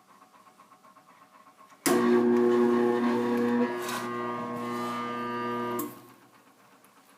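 Electric clothes dryer motor buzzing loudly for about four seconds, a steady electrical hum that starts and stops abruptly without the motor getting going. It is the stalled-motor buzz of a dryer that won't start, a motor the owner found to be fried.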